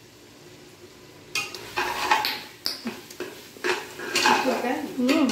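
Metal ladle scraping and knocking against a steel cooking pot as a thick masala is stirred: an irregular run of clinks and scrapes starting about a second in.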